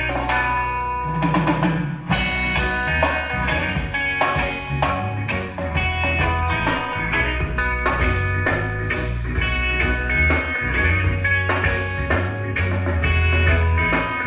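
Instrumental break of a pop song: drum kit keeping a steady beat with bass and guitar.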